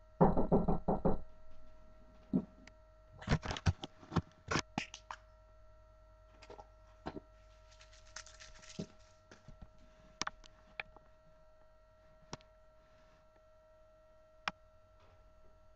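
Savannah kittens moving about and playing on a wooden floor: irregular knocks, taps and scratches, bunched in the first second and again about three to five seconds in, then scattered single clicks. A faint steady hum runs underneath.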